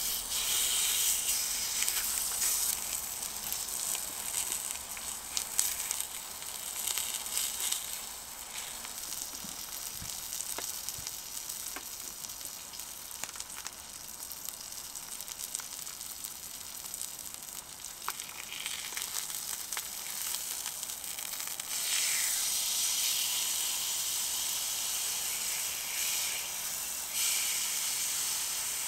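Meat sizzling on a hot griddle plate over a small box stove: the sizzle starts suddenly as the raw meat is laid on, runs on as a steady frying hiss with small crackles, and grows louder about two-thirds of the way in.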